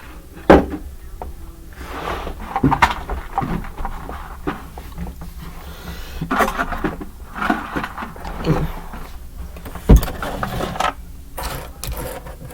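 Plastic model kits, parts and boxes being handled and put away: irregular rustling, clicks and knocks, with two sharp knocks, one about half a second in and one near ten seconds.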